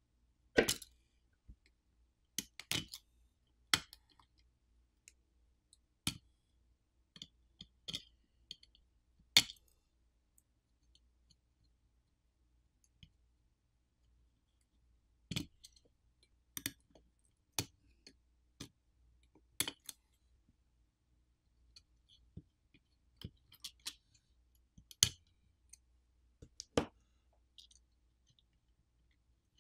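Scattered sharp clicks and small taps, about fifteen in all with a few seconds' pause near the middle, from a plastic pry tool and metal tweezers working on a smartphone's main board as flex-cable and coaxial-cable connectors are unclipped.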